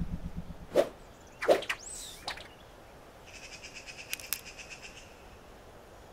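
Cartoon sound effects: two quick sharp swishes about a second in, a few short chirps, then a soft rapid trill with a couple of light ticks in the middle.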